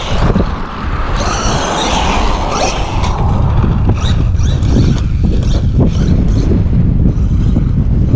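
Traxxas Maxx V2 RC monster truck driving on a 160 A 8S ESC: its electric motor whines up and down in pitch over a steady low rumble, with scattered sharp ticks.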